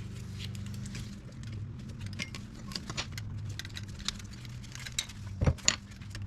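Small metallic clicks and clinks of needle-nose pliers working a cotter pin out of the end of an ATV rear axle, with two sharper knocks about five and a half seconds in as the pliers are struck to drive the pin.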